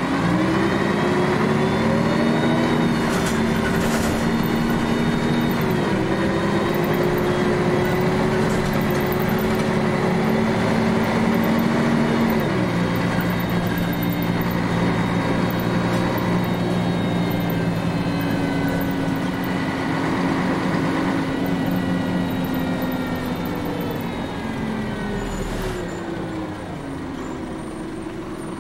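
Nissan Diesel Space Runner city bus's diesel engine pulling away from a stop. Its pitch drops in two steps as it shifts up, about 6 and 12 seconds in, then it runs steadily and eases off, winding down as the bus slows near the end.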